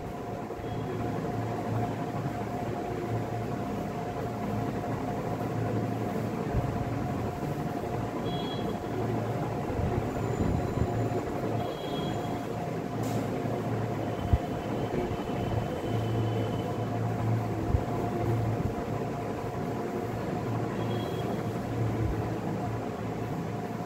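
Steady background hum and rumble with a constant mid-pitched drone, and a few faint short high tones scattered through it.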